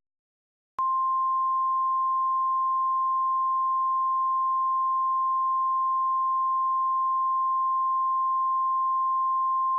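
Emergency alert warning tone: a single steady electronic beep at one pitch, starting about a second in and held without a break.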